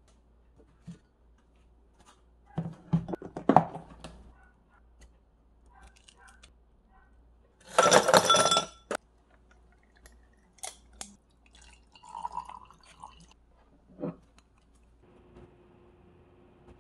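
Ice cubes tipped from a plastic container into a glass tumbler, a dense rattling clatter with glassy clinks lasting about a second, roughly eight seconds in. Before it comes a few seconds of kitchen clatter, and afterwards scattered light clinks, one of them near the end.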